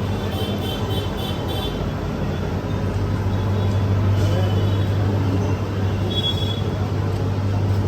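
Street traffic noise, with a vehicle engine running close by that gets louder about three seconds in. A few short high-pitched beeps sound near the start and again near the end.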